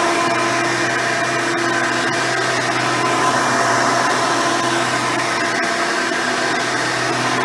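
Hoover Elite 350 upright vacuum running steadily with a swapped-in 7-amp motor and its original seven-blade fan, giving a constant motor whine over the airflow rush.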